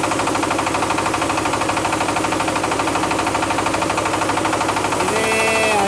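MAKTANI MT212 rice milling machine running steadily under load while milling paddy, its drive and mill giving a loud, fast, even pulse as milled white rice pours from the outlet chute.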